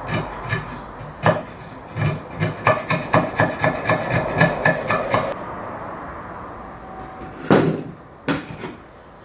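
Old glue being scraped off a wooden joint piece in quick, short repeated strokes, about three to four a second, stopping about five seconds in. Two louder wooden knocks follow near the end.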